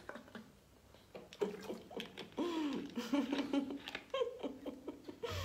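A few faint clicks, then a woman's voice in short, soft laughs and wordless vocal sounds.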